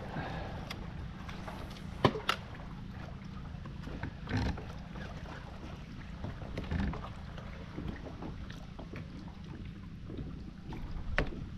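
Steady low rumble of wind on the microphone, with a few short knocks: two close together about two seconds in, then single ones around four and seven seconds in and near the end.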